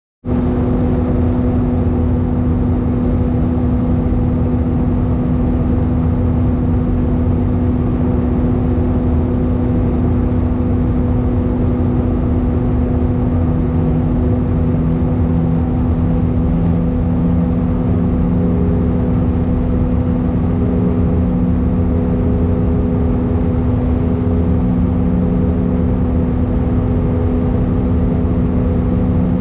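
Airbus A319 cabin noise from a window seat over the wing: the steady drone of the jet engines and rushing airflow during the descent, with a low hum underneath. A second, lower hum joins about halfway through.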